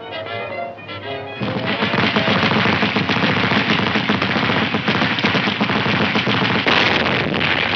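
Orchestral film music that breaks off about a second and a half in for a dense, unbroken din of battle effects: rapid machine-gun and rifle fire.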